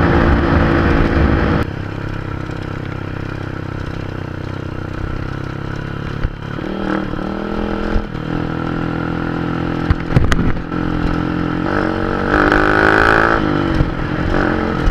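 Honda Dream 100cc motorcycle's single-cylinder four-stroke engine running under way. It eases off about a second and a half in, then picks up with rising revs twice later on. A few sharp knocks and rattles come through along the way.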